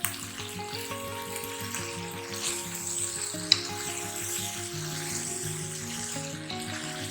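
Cut vegetables and spice paste sizzling in hot oil in a pan, with a sharp click about three and a half seconds in, over background music.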